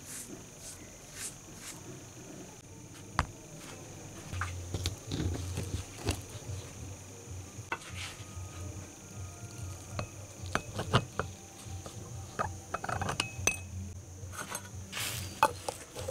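Brush scrubbing on a foam-covered steel nut at first, then a series of sharp clinks and taps of metal and glass as a glass jar of water is handled; near the end a metal screw-on lid is fitted onto the jar.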